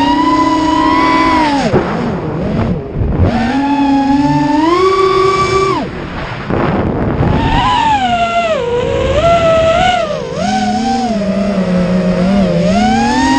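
FPV quadcopter's motors whining, the pitch gliding up and down with the throttle and dropping sharply when the throttle is cut, about two, six and ten seconds in.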